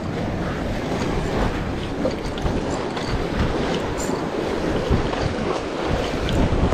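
Sea surf washing over shoreline rocks, with wind buffeting the microphone in a steady low rumble.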